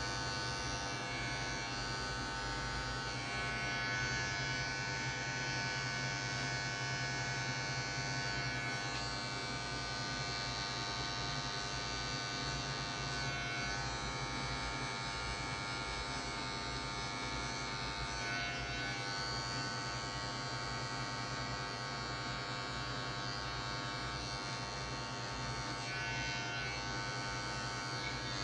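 Electric hair clipper running with a steady buzz as its blade cuts short hair on the side and back of a head.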